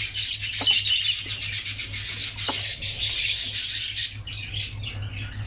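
Budgerigars chirping and chattering, a dense, high-pitched stream of rapid chirps that thins out after about four seconds.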